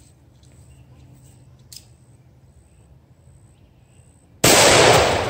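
An AR-15 rifle fires a single 55-grain .223 FMJ round about four seconds in: a sudden, very loud shot that rings out and dies away over about a second. Before it, only faint outdoor background with a thin high insect or bird tone.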